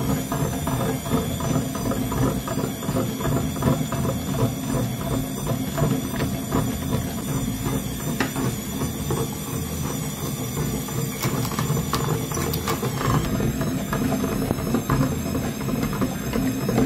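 Electric meat grinder running while it crushes sticks of coloured chalk into crumbs, a steady motor hum under a continuous gritty crackle of breaking chalk.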